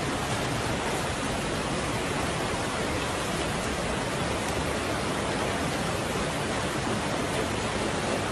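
Floodwater rushing down a street in a steady, unbroken rush of water noise.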